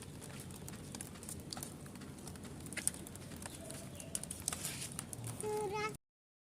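Rain dripping and pattering in many small scattered taps. A short wavering pitched call sounds near the end, and then the sound cuts off abruptly.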